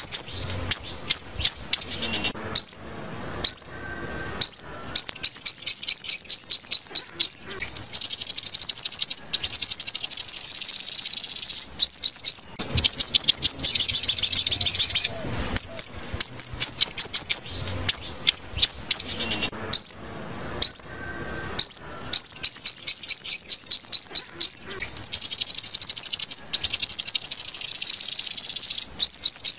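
Sunbird song: loud, very high-pitched rapid trills and chirps of quick falling notes, in phrases of a few seconds broken by short pauses.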